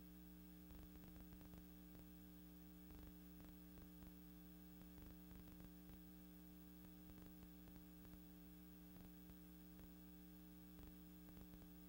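Near silence: a steady low hum with faint hiss and scattered faint crackles.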